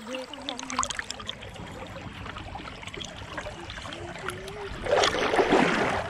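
Shallow stream water running and trickling over a stony bed, then a loud splashing rush of water close to the microphone about five seconds in.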